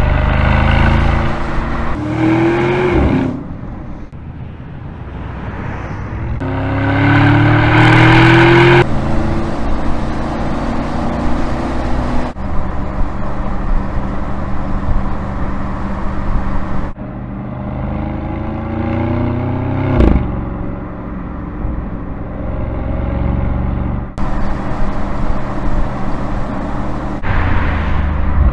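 Audi SQ7's twin-turbo 4.0-litre V8 heard in a series of short cut-together driving clips. The engine note climbs under acceleration twice early on, runs steadily in between, and gives one sharp rev about two-thirds of the way through that quickly falls away.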